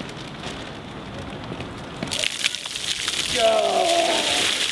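Buckets of ice water poured over a man's head, the water splashing down onto him and the stone steps, beginning suddenly about two seconds in. A voice cries out briefly partway through the drenching.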